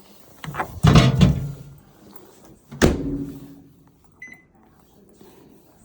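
Clattering and knocking about a second in, then the microwave oven door shut with a single sharp thunk that rings briefly, then one short keypad beep as the microwave is set.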